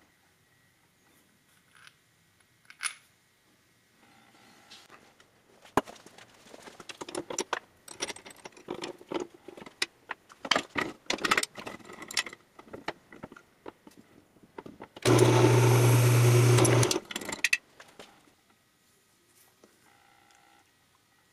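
Small metal parts clicking and knocking as they are handled, then a drill press running for about two seconds with a steady hum that starts and stops suddenly, the loudest sound.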